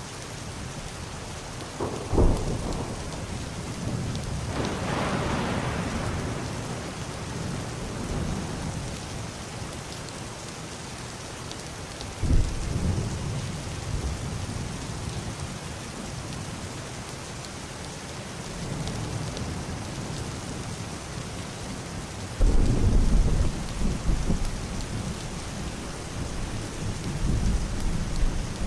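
Heavy rain falling steadily on a roof and glass window, with muffled distant thunder rolling in several times: a short rumble about two seconds in, a longer one soon after, a sudden one about twelve seconds in, and the loudest, deepest rumble a little past twenty-two seconds.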